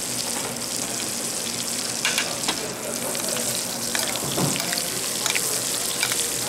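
Louvar fillets frying in foaming butter in a skillet: a steady sizzle with scattered crackles and spatters.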